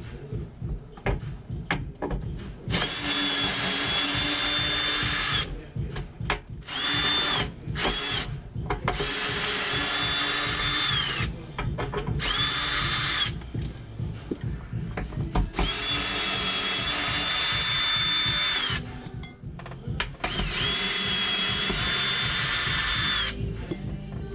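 Power drill backing out subwoofer mounting screws in six runs of one to three seconds each, its whine rising as it spins up and dropping as it stops, with knocks and handling between runs.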